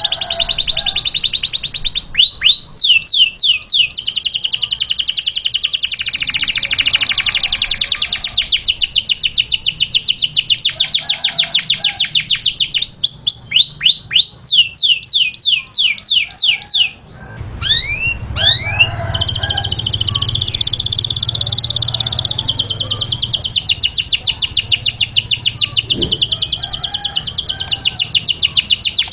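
Domestic canary singing: long, rapid trills of high repeated notes, broken three times by runs of quick downward-sweeping whistles, with a brief break just past the middle.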